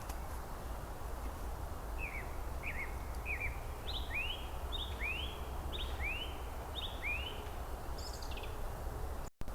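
A songbird singing a run of about a dozen short, clear notes, alternating higher and lower at roughly two a second, over a steady outdoor hiss and low hum. The sound cuts out briefly near the end.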